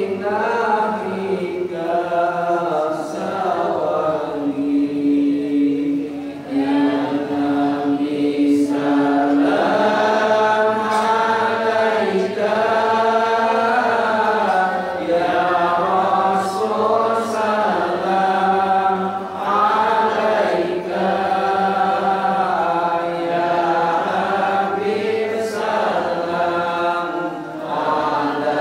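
Men's voices chanting an Islamic devotional chant in Arabic, melodic and unbroken, led over a microphone, with one note held for several seconds about five seconds in.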